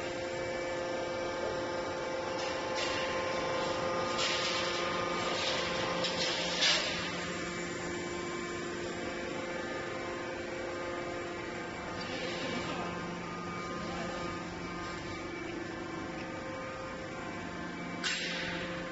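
Steady hum of factory machinery, holding several constant tones, with a few short hissing bursts a few seconds in and a sharp knock near the end.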